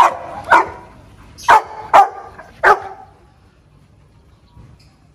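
Pit bull-type dog barking five times in under three seconds, then stopping.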